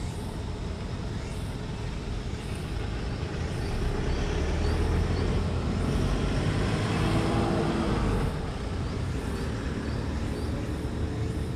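Road traffic: a vehicle passes on the road, swelling about four seconds in and fading away near eight seconds, over a steady background of traffic noise.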